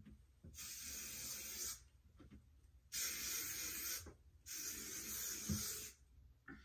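Aerosol hairspray can sprayed in three long hissing bursts of about a second each, setting freshly curled hair.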